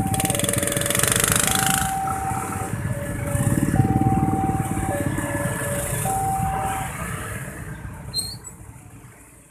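Level-crossing warning alarm sounding a two-tone electronic chime, switching between a lower and a higher tone about once a second, over the rumble of a passenger train's last coaches and the engines of many motorcycles. The alarm stops about seven seconds in as the motorcycles move off across the tracks.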